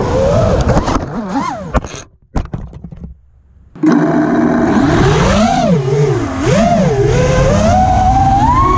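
Mini FPV quadcopter's electric motors whining, the pitch swooping up and down with the throttle. About two seconds in the motors cut out with a brief knock as it drops into the grass, leaving near silence, then they spin back up just before four seconds in and whine on, rising toward the end.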